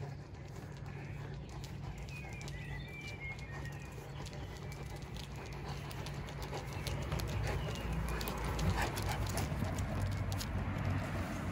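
Two Caucasian Shepherd dogs and their walker stepping on asphalt toward the microphone: paw and claw clicks and footfalls that grow louder as the dogs come right up close in the second half. A few bird chirps in the first few seconds, over a steady low hum.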